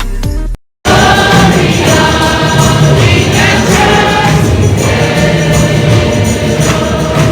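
Background music: a short end of one track cuts out, and after a brief silence a gospel choir song comes in and continues loud and full.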